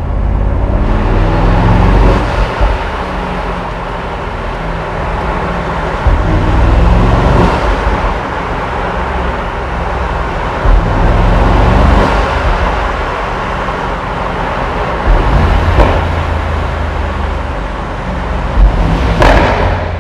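Mercedes-AMG SL63's twin-turbo V8 running while driving, its pitch rising and falling several times as it accelerates and eases off. A few short sharp cracks stand out over it.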